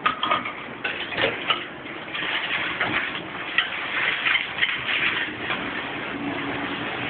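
Hand dishwashing: a few knocks and clinks of dishes in the first two seconds, then a steady hiss of running tap water.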